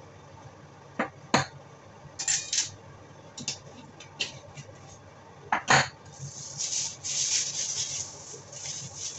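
Sharp clicks and knocks of a plastic jar and measuring spoons being handled, two of them loud, then from about six seconds in the crinkling rustle of a thin plastic food-prep glove being pulled onto a hand.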